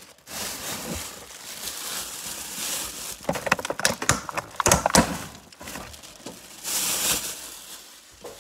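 Handling noise: rustling and rubbing on the phone's microphone, with a quick run of sharp clicks and knocks in the middle and a hissy swell of rustling near the end.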